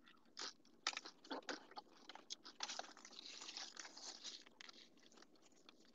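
Quiet, close-up chewing and crunching of food, with many short wet mouth clicks.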